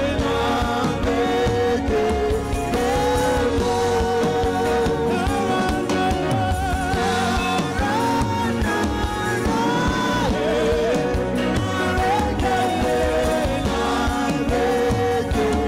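Live gospel music: several singers on microphones holding long, wavering sung notes over a continuous band backing.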